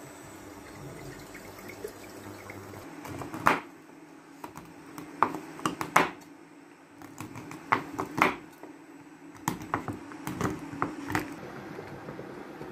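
Water poured from a glass jug into a steel pot, then a knife chopping block chocolate on a wooden cutting board in irregular sharp knocks, about eight of them.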